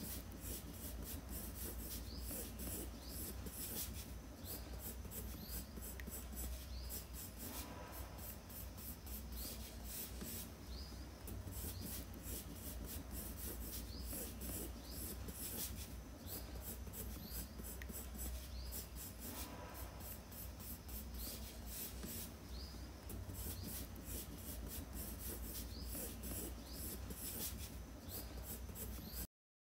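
Blue coloured pencil scratching on sketchbook paper in quick, repeated strokes as a drawing is outlined and shaded, over a steady low hum.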